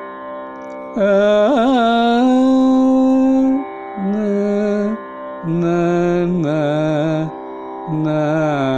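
A man sings a short Carnatic raga phrase over a steady drone, in four sung stretches with short gaps between them. The first stretch opens with quick wavering ornaments and settles on a long held note; the later ones step between held notes.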